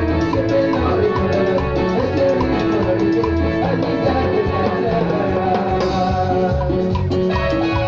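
Live band playing Ecuadorian chicha music, with a steady, regular beat under sustained melodic tones.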